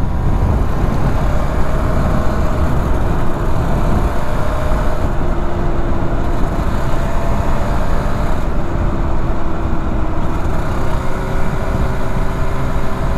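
Suzuki RGV250 VJ22's two-stroke V-twin engine with Arrow exhausts, running at a steady cruise with a fairly even pitch, under heavy wind rumble on the microphone.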